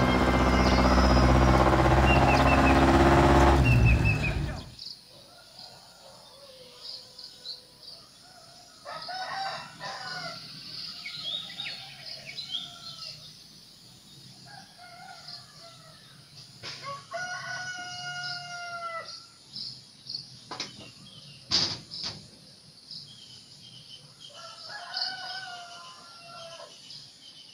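A loud low drone that stops abruptly about five seconds in, followed by quiet rural ambience with a rooster crowing several times and small birds chirping.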